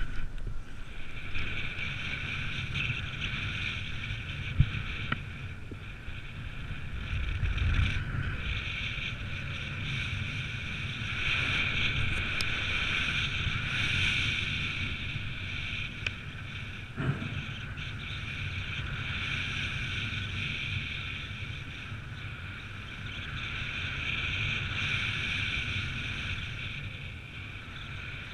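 Wind from paragliding flight buffeting the camera microphone as a low rumble, with a steady high whistle over it.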